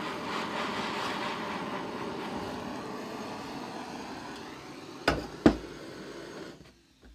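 Handheld gas blowtorch burning with a steady rushing hiss as it scorches a wooden axe handle, cut off suddenly near the end. Just before it stops come two sharp knocks about half a second apart.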